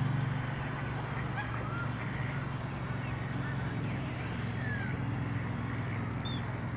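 Duck-pond ambience: a steady low hum throughout, with short, scattered high bird chirps and calls from the ducks on the water.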